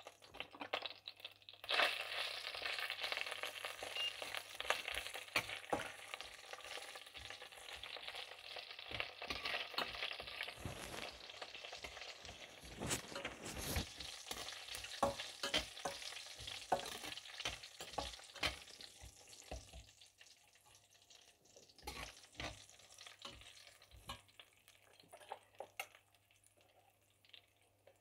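Cumin seed, dried chillies, cardamom, cinnamon, bay leaves and raisins sizzling in hot oil in a stainless steel pan, the first step of tempering whole spices. A metal spatula stirs and scrapes them, clicking against the pan. The sizzle starts about two seconds in and dies away after about twenty seconds, leaving a few scrapes.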